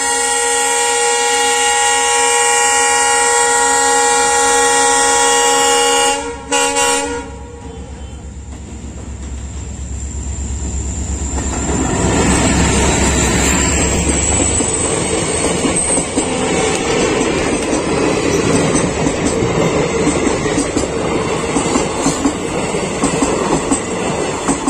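Indian Railways diesel locomotive sounding a long horn blast on approach to a level crossing, followed by two short toots. Its engine rumble then swells as it passes. The rattle and clickety-clack of the passenger coaches' wheels over the rail joints follows to the end.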